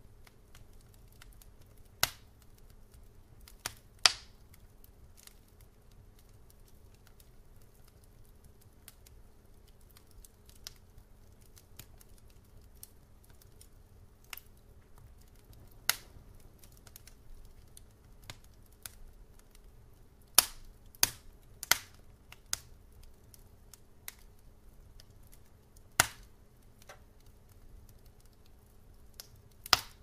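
Wood fire burning in a fireplace: sharp crackles and pops from the logs at irregular intervals, with a quick run of several pops about two-thirds of the way through, over a faint steady low hum.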